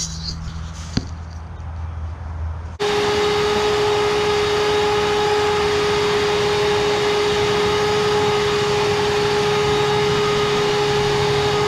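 A power tool's motor switches on about three seconds in and runs at a steady high speed, with a steady hum over loud noise, after a quieter stretch with a few light clicks.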